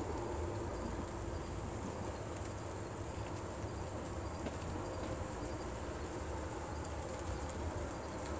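Steady high-pitched chorus of crickets or similar night insects, over a low rumble, with a few faint ticks.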